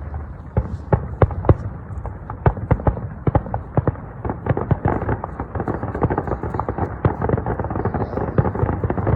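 Fireworks display: a rapid, irregular run of bangs and crackles, several a second, growing denser in the second half.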